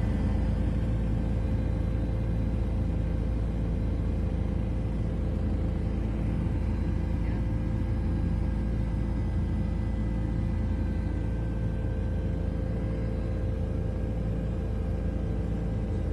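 A steady low engine rumble with a constant hum, running evenly without change.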